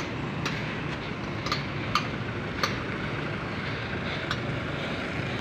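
Steady roadside background noise with a low hum of traffic, and a handful of short, light clicks at uneven intervals.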